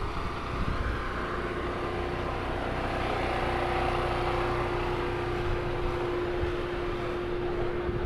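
Steady mechanical drone with a constant hum that sets in about a second and a half in and holds.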